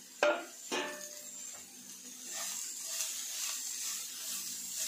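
Dry stir-fry of shredded chicken and roasted coconut sizzling lightly in a nonstick pan while a wooden spatula scrapes and stirs it in a steady rhythm. Two short knocks come in the first second.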